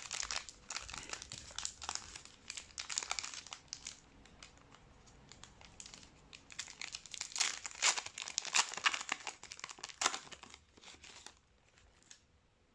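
Plastic wrapping crinkling and tearing as a box of trading cards and its packs are unwrapped, an irregular crackle that stops about eleven seconds in.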